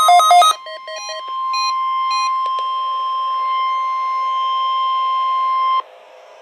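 Weather radios sounding the NOAA weekly test alert. Fast, loud two-tone beeping from one receiver stops about half a second in, and a few quieter beeps follow. A single steady warning-alarm tone sounds over radio hiss and cuts off suddenly near the end.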